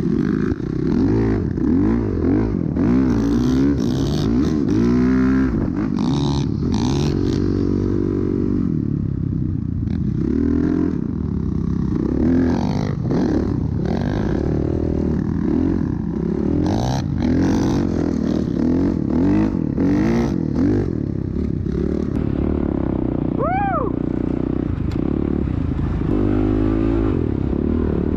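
Dirt bike engines revving up and down over and over, several at once, as the bikes ride through sand dunes. About three-quarters of the way through comes a brief high tone that rises and falls.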